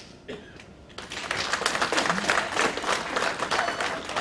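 Audience applauding: a few scattered claps, then dense steady clapping from about a second in, starting to thin out near the end.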